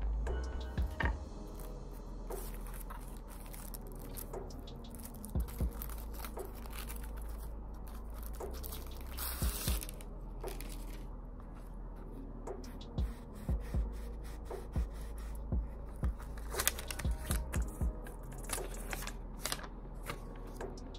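Paper wrapping and tissue crinkling and rustling as a new leather wallet is unwrapped by hand, with small taps and clicks of handling. A longer rustle of the paper sleeve sliding off comes about nine seconds in. Under it all runs a steady low hum.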